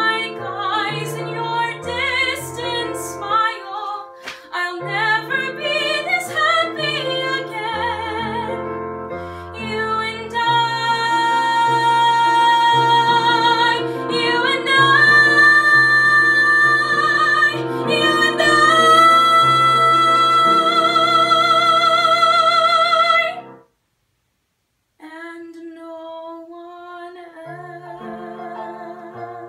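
A woman singing musical-theatre style to digital piano accompaniment, holding long high notes with vibrato through the middle. The sound drops out completely for about a second and a half near the end, then the voice and piano come back more softly.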